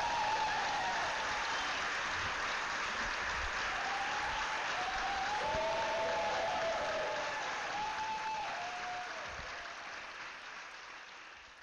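Audience applauding, with a few cheering voices over the clapping; the applause dies away over the last few seconds.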